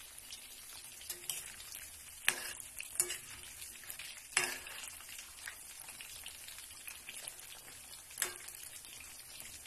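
Sweet potato wedges deep-frying in hot oil, a steady sizzle. A spatula stirring them knocks and scrapes sharply against the pan a few times, loudest a little over two and four seconds in.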